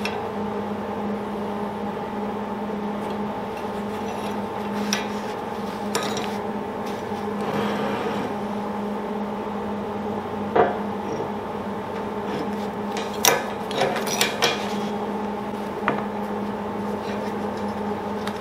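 Steel clamps and a small vise clinking and knocking against a steel welding table and workpiece as they are repositioned by hand: a handful of sharp metal clanks, the loudest about halfway through and a quick run of four shortly after. Under them runs a steady machine hum.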